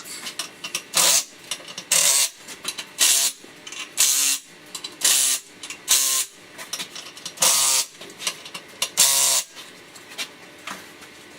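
A small power tool run in about eight short bursts, its motor rising in pitch each time: fasteners being driven while the chainsaw bar is mounted in the mill.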